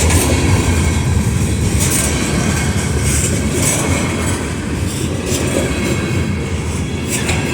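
Norfolk Southern freight train's cars rolling past at close range: a steady rumble with the wheels clacking over the rails.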